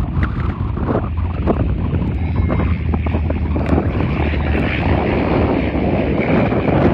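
Jet airliner engine noise mixed with wind buffeting the microphone: a heavy low rumble, with a faint high engine whine coming in about two seconds in.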